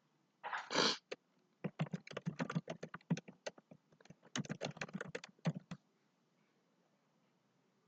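Typing on a computer keyboard: a short rustle first, then two quick runs of key clicks, the second starting a little past four seconds in.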